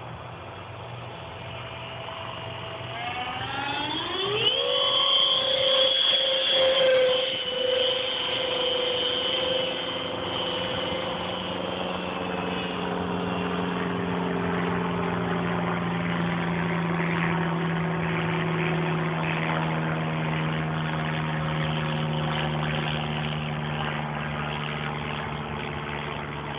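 Twin 70 mm electric ducted fans (Hobbyking units with 2900 kV motors) of a radio-controlled jet whining in flight. The pitch climbs steeply a few seconds in as the fans speed up, then holds as a steady whine that slowly drops in pitch.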